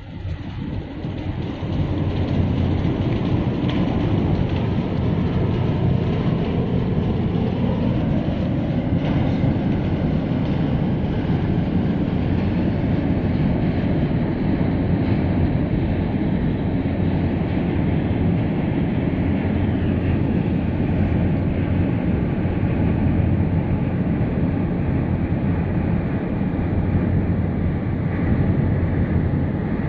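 Large container ship passing close by: a loud, steady, deep rumble of its engines and machinery, with a constant low hum, building up over the first two seconds.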